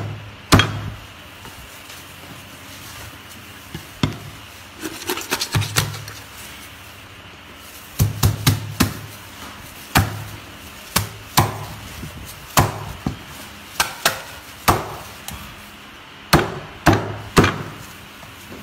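Cleaver chopping food on a wooden board: single heavy strikes at irregular intervals, coming in spells with short pauses between them.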